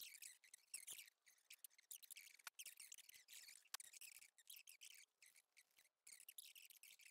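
Faint scratchy rustling of thin card being worked by hand, marked with a pencil and then cut with scissors, coming in short runs with gaps. There are a couple of sharp clicks in the middle.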